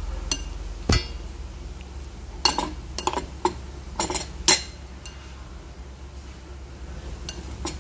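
Stainless steel tongs clinking and tapping against a ceramic bowl as noodles are arranged: a dozen or so sharp, separate clinks, thickest between about two and a half and five seconds in.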